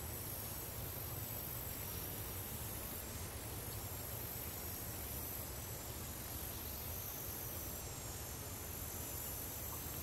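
Steady outdoor nature ambience: an even, high-pitched insect hum over a low rumble.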